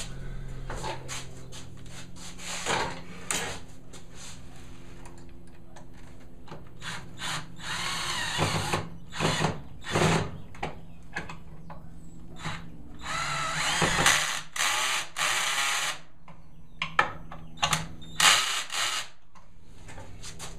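Cordless drill driving pocket screws into the joints of a wooden door frame, in several short runs, the longest about three seconds. Sharp clicks and knocks follow near the end as the frame is handled.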